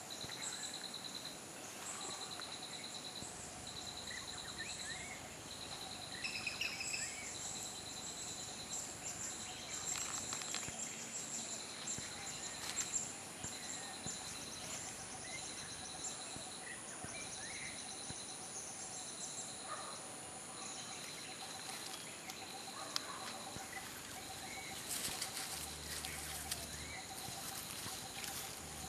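Forest ambience: an insect's high trill repeating in short pulses about once a second, with scattered short bird chirps.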